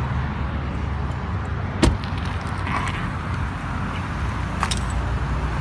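Car engine idling with a steady low rumble, a sharp knock about two seconds in and a lighter click about five seconds in.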